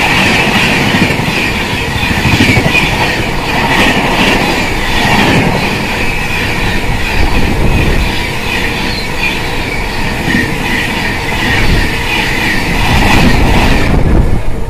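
An Indian Railways express of LHB coaches running through a station at about 130 km/h. The wheels clatter in a steady rhythm over the rail joints under a constant high hiss from the rails. The noise falls away near the end as the last coach clears.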